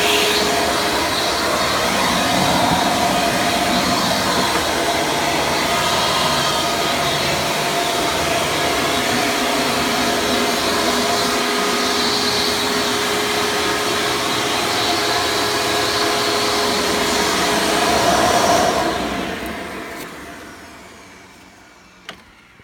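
Hoover Preferred U5093-940 upright vacuum's 12-amp direct-air motor running steadily in tool mode, drawing air through the on-board hose and dusting brush. About 18 seconds in it is switched off, and the motor winds down to a stop over several seconds.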